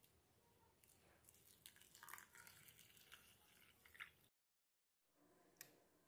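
Cold water poured from a plastic jug into a glass bowl of rolled oats: a faint splashing trickle with small crackles as the flakes soak. It cuts off suddenly about four seconds in, and a light click follows near the end.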